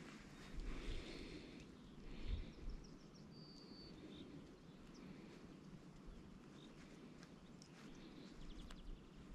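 Faint outdoor ambience: a low, even background haze with a few soft rustles and thumps of tackle being handled, and one short high chirp, likely a bird, about three and a half seconds in.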